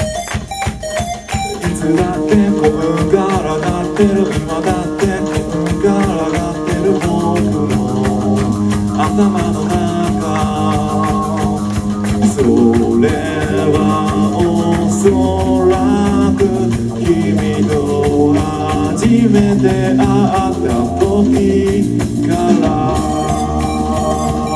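Rock band playing live: electric guitars, bass and drum kit with a sung lead vocal.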